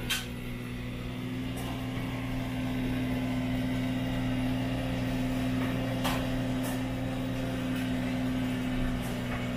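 Necta Krea coffee vending machine humming steadily as its pump and mixer dispense a hot drink into a paper cup, growing a little louder about three seconds in, with a few sharp clicks.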